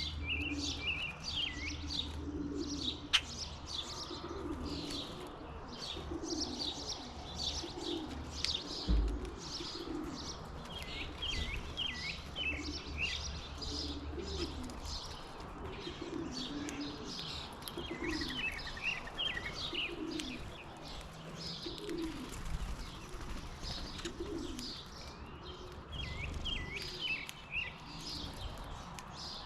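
Many small birds chirping in quick, overlapping high notes, over low cooing that repeats about once a second throughout.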